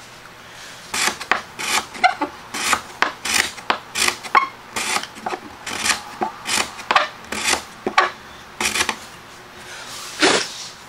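Hand chisel paring strokes scraping across the wood of a half-lap joint, about two short strokes a second, as the waste is pared down to a flat floor.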